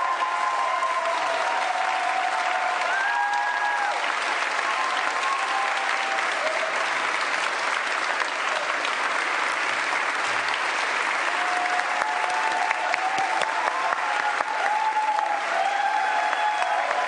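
A large crowd applauding steadily, with a few voices calling out over the clapping near the end.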